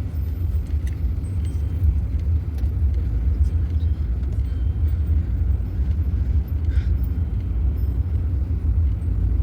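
Steady low rumble of a van's engine heard from inside the cabin.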